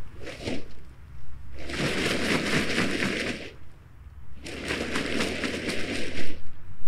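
Two bouts of crackly rustling, each about two seconds long, with a shorter rustle just before them.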